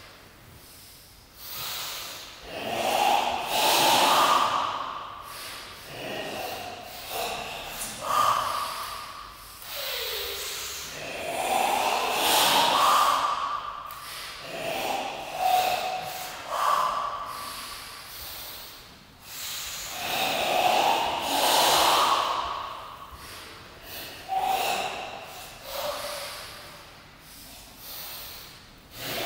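Goju-ryu ibuki breathing by several karateka in a sanchin-stance kata: loud, forced, hissing breaths in and out, each lasting one to several seconds, repeating in a slow rhythm.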